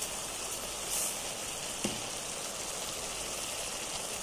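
Shrimp cooking in coconut milk in a pot on the stove, a steady sizzle, with one small tap about two seconds in.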